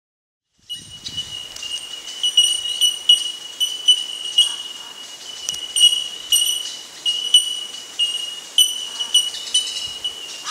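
Outdoor bush ambience: a steady, high-pitched insect drone, with short ringing bird calls repeated at irregular intervals over it.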